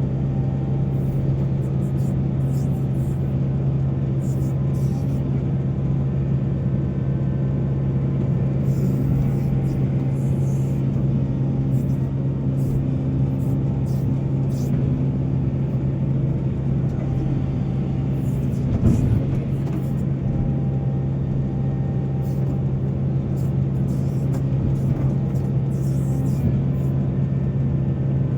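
Heavy diesel mining machinery running steadily with a constant low drone, with a single knock about two-thirds of the way through.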